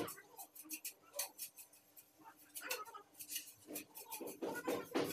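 Tile-laying work on a concrete floor: irregular light scrapes and clicks as wet cement is spread and the tiles are handled, over a faint steady hum.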